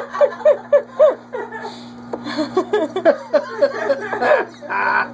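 Laughter in quick repeated 'ha' pulses, coming in two bouts with a short breathy burst near the end, over a steady low hum.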